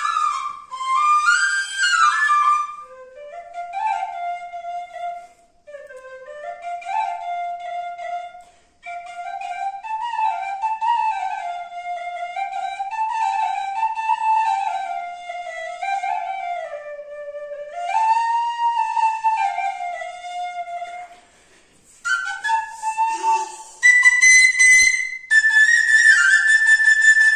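Bansuri, a small end-blown bamboo flute, playing a slow Pahadi melody of held notes and sliding ornaments. About 21 seconds in the tune breaks off briefly, then comes back higher, louder and breathier.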